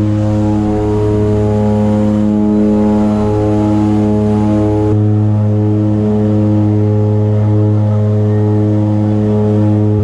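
Turboprop engines and propellers of a de Havilland Canada DHC-6 Twin Otter seaplane at climb power just after take-off from the water, heard inside the cabin: a loud, steady drone with a deep hum and several steady tones above it. The low rumble beneath eases about halfway through.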